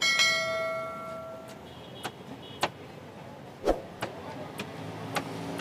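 Machete chopping the husk of a green coconut: about six sharp strikes in the second half, the loudest a little before four seconds in. At the start there is a ringing tone of several pitches that fades away over about a second and a half.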